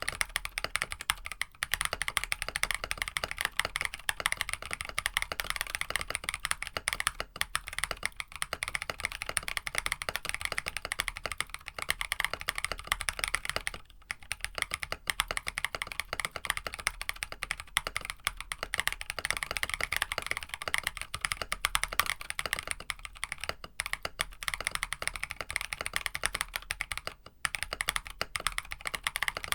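Fast, continuous typing on a KBD67 Lite mechanical keyboard with tactile Musetsu switches on an FR4 plate, a dense stream of keystroke clacks. The typing pauses briefly about halfway through and again near the end.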